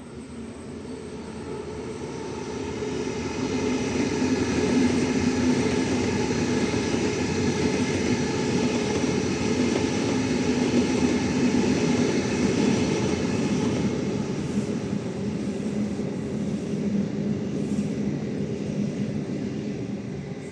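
Electric suburban passenger train passing through the station: wheel-on-rail rumble with a steady motor hum. It grows louder over the first few seconds, holds, and fades away near the end.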